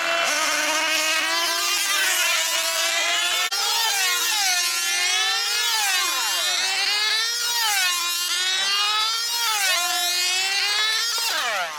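F2C team-racing model aircraft engines, small 2.5 cc diesels, running at full speed in a high-pitched whine. The note rises and falls about every two seconds as the models circle on their control lines. Near the end the pitch slides down and the engine stops.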